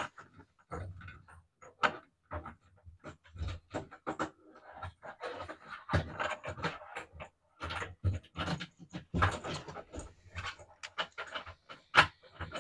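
Irregular rustling, scraping and knocking from hands and a plastic fuel line being worked through a car's fuel tank access opening, with many short sharp knocks.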